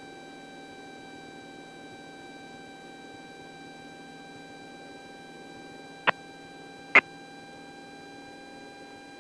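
Cockpit intercom audio of a Cessna 172S in its full-power climb-out: a steady low hum with a faint electrical whine, and no talk. Three short, sharp clicks come near the end.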